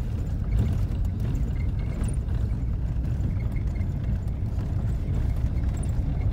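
A vehicle driving, heard from inside the cab: a steady low rumble of engine and road noise, with faint short high chirps now and then.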